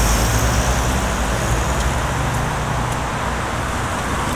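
Road traffic noise as a BKM 321 trolleybus pulls in close to the kerb: a broad rush of tyre and road noise over a steady low hum, easing slightly in level.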